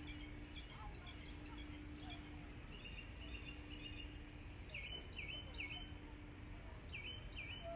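A songbird singing over low outdoor background noise: a run of quick descending chirps, then, from about five seconds in, several clear swooping notes. A faint steady hum comes and goes underneath.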